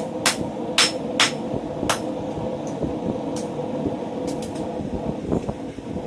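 Blacksmith's hand hammer striking hot steel on an anvil while forging a scroll: four sharp ringing blows about half a second apart, then a few light taps and a pause, over a steady rushing noise.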